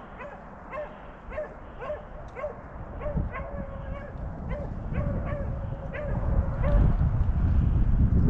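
Beagles baying on a rabbit's trail: a run of short yelping calls about two a second, then long drawn-out bawls. A low rumbling noise grows loud near the end.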